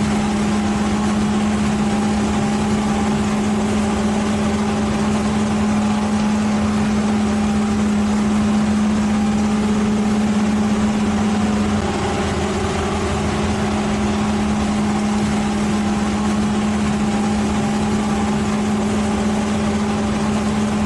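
An engine running steadily at a constant speed, a steady hum with a slight drop in level about twelve seconds in.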